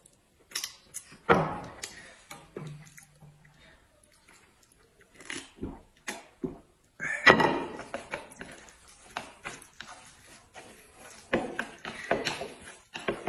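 Table eating noises: chopsticks and a spoon clicking and scraping against plates and bowls, with chewing. The loudest sound comes about seven seconds in, a noisy burst as a glass bowl of liquid is drunk from.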